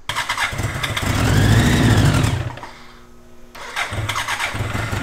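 The 1000cc engine of a flood-damaged trophy kart catches suddenly on starting fluid. It revs up and back down over about two seconds, nearly dies, then picks up again and runs unevenly.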